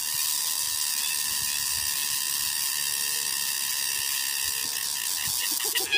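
Steady high-pitched buzzing drone of insects in the vegetation, even and unbroken throughout.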